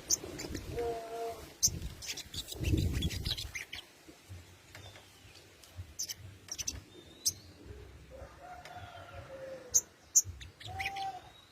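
Sogon (little spiderhunter) giving sharp, high-pitched chip calls in irregular short bursts. A lower, drawn-out call comes in three times, and there is a low rustle about three seconds in.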